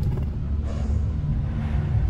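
Deep, low rumbling growl of a tyrannosaurus rex sound effect, with a breathy hiss joining about two-thirds of a second in.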